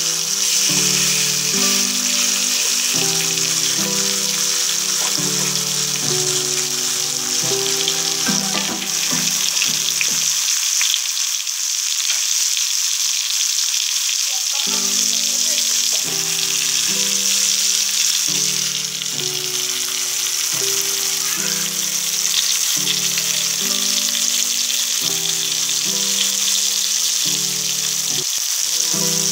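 Fish steaks shallow-frying in hot oil in a pan, a steady loud sizzle. Background music plays over it, dropping out for a few seconds about halfway through.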